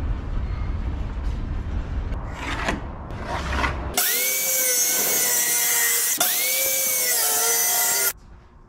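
Corded circular saw spinning up and cutting plywood with a steady, loud whine. It stops for a moment about two seconds in, spins up again for a second two-second run, then cuts off suddenly. Before the saw, about four seconds of low rumbling noise.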